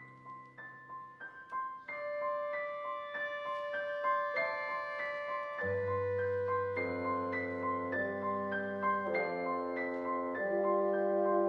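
Instrumental chamber music: the piano plays repeated struck notes, and from about six seconds in sustained lower notes from the ensemble join it as the music grows fuller and louder.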